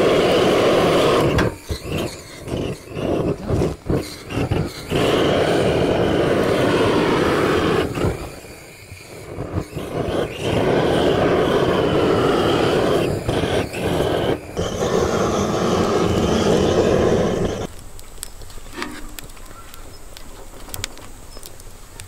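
Handheld gas torch on a canister burning with a steady rushing hiss as it lights wood in a camp grill. It cuts in and out a few times. Near the end the torch stops and only a much quieter fire with faint crackles is left.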